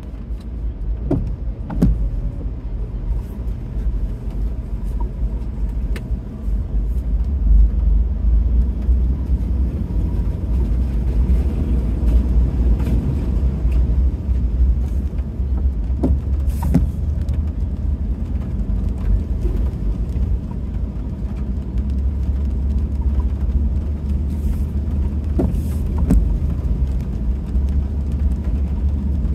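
Vehicle driving slowly through floodwater on a road, heard from inside the cabin: a steady low engine and road rumble with water washing under the vehicle. A few short knocks sound near the start, about midway and near the end.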